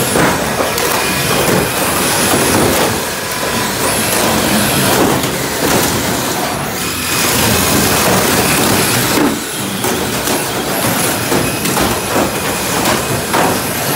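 Several radio-controlled cars running and ramming into one another on a plywood floor, a continuous clatter of small motors, wheels scrubbing on the wood and frequent cracks of model-car bodies colliding.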